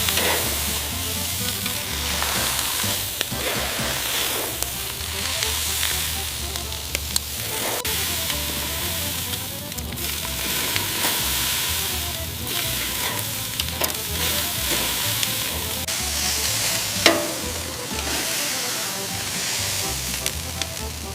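Food sizzling steadily on high heat, with scattered light clicks and a sharper tick about 17 seconds in.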